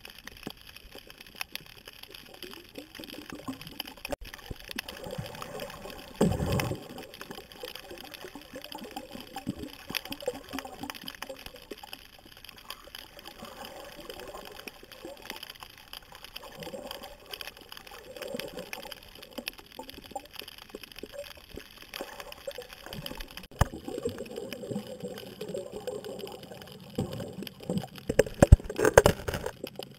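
Underwater sound through a camera's waterproof housing: a steady wash of water noise with scattered faint clicks and crackles, and a louder thump about six seconds in. Near the end comes a burst of louder knocks and scrapes as a territorial damselfish shoves the camera over.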